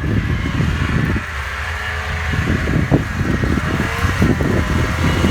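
Snowmobile engine running under way, with wind noise; the level drops about a second in, as if the throttle eases off, then builds back up.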